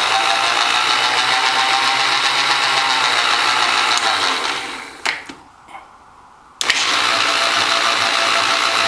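Milling machine table power feed running, its motor and gearbox giving a steady whirr. About four and a half seconds in it winds down to a stop with a click as the lever is thrown across. A second and a half later it starts up again abruptly, driving the table the other way. The repaired auto feed is working.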